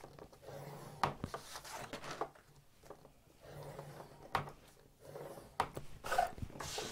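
Plastic scoring tool drawn along the grooves of a Crafter's Companion Ultimate box-making board, pressing score lines into cardstock: a few soft scraping strokes with several sharp clicks as the tool and card are moved.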